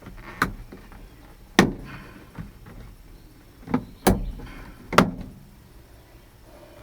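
Five sharp knocks and thuds, irregularly spaced over about five seconds, with quiet between them.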